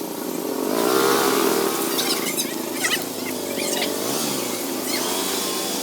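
A motor vehicle engine running steadily, its pitch wavering slightly up and down.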